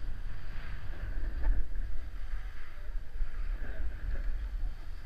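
Snowboard sliding over groomed snow, with wind rumbling on a GoPro Hero3 Black's microphone.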